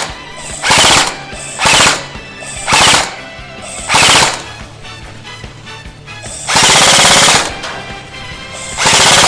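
Airsoft guns firing short full-auto bursts of rapid plastic-BB shots, six bursts in all, with one longer burst about two-thirds of the way through.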